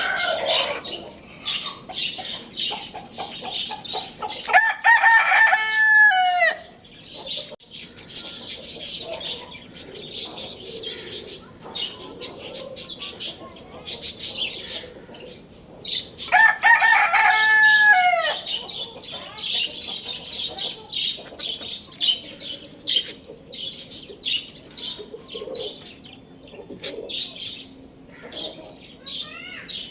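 Rooster crowing twice, each crow about two seconds long and ending in a falling tail, over near-constant clucking and high chirping from other birds.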